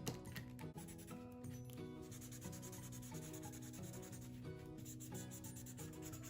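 Drawing or colouring strokes rubbing on paper, with background music playing a melody of short, changing notes.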